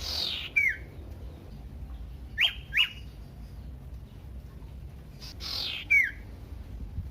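Common iora calling: a harsh rasp sliding down in pitch and then a short falling whistle, given twice, with two sharp whistled notes between them.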